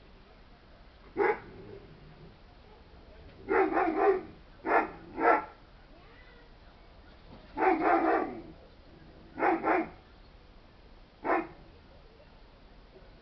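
A dog barking off-camera, about a dozen short barks: single barks and quick runs of two or three, spread irregularly across the stretch.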